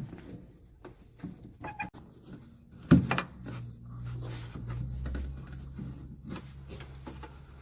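Scattered plastic clicks and knocks of a headlight bulb socket being twisted and worked loose in its housing, with a sharp knock about three seconds in. A low steady hum starts just after the knock and runs on to near the end.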